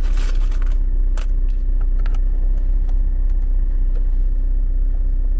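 Sharp plastic clicks and rattles as a dashboard trim panel's retaining clip is pried loose with a screwdriver, bunched in the first second with a few single clicks after, over a steady low mechanical hum inside the car cabin.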